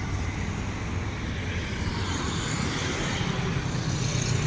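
Steady outdoor background noise with a low rumble that grows a little louder in the second half.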